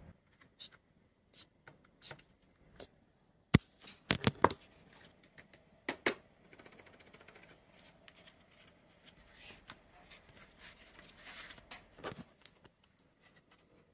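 A cardboard CD digipak and its contents being handled: scattered taps and clicks, a few sharp clicks about four seconds in, and soft rubbing of card and paper near the end.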